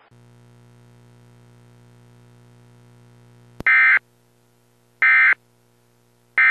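EAS End-of-Message data tone: three short, loud, raspy bursts of the digital SAME code, about 1.4 s apart, that close the alert. They begin just past halfway after a click, over a faint steady hum on the line.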